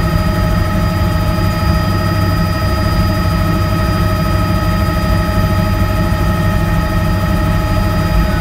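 Bell 206 JetRanger helicopter in steady flight, heard inside the cabin: the dense low drone of the rotor and transmission, with a steady high whine from the turbine engine over it.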